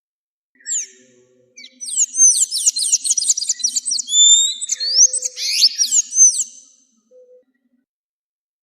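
An azulejo singing: one short call, then about five seconds of fast warbling song made of rapid, mostly falling whistled notes, which stops well before the end.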